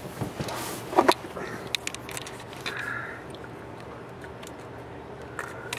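Handling noise as the camera and a hand move around the Jeep's plastic dash panels: scattered clicks and rustling, with a sharper knock about a second in, over a faint steady low hum.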